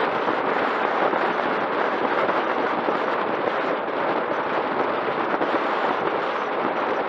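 Steady rushing of wind over the camera's microphone together with tyre noise on asphalt, from a road bicycle descending at speed.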